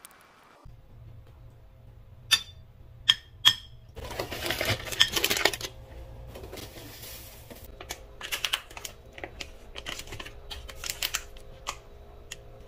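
Three sharp clicks, then a paper shopping bag rustling and crinkling as it is opened and emptied, followed by lighter rustling and clicking of packaging being handled, over a low steady hum.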